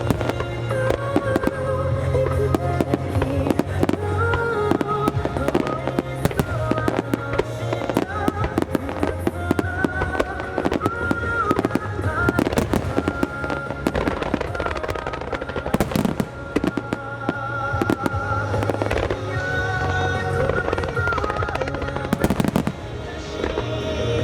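Fireworks bursting in dense, rapid succession over loud music, many reports close together throughout.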